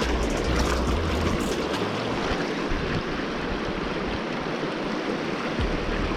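Water rushing over river shoals: a steady hiss, with a low rumble underneath that drops out from about two seconds in until near the end.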